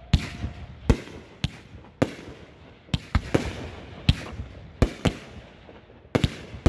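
Aerial firework shells going off in a fireworks display: sharp bangs at uneven spacing, about one to two a second, each trailing off in an echo.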